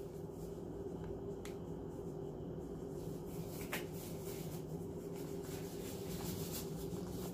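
A steady low hum with a couple of fixed pitches, with scattered faint clicks and ticks, a few more of them toward the end.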